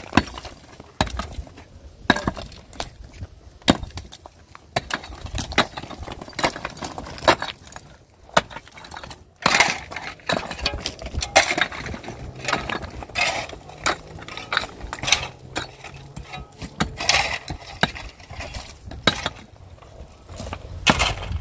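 Pickaxe and long-handled hand tools striking and scraping through loose stone rubble: irregular sharp knocks, with broken stones clinking and clattering.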